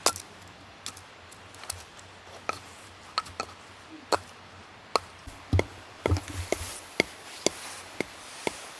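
Irregular sharp wooden knocks, a string of many single hits, some close together in pairs. The loudest come at the very start and about halfway through.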